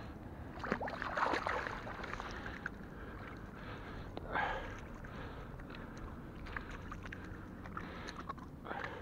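Splashing in shallow water as a released pike kicks free of the hand and swims off, loudest about a second in, with another short splash about four seconds in.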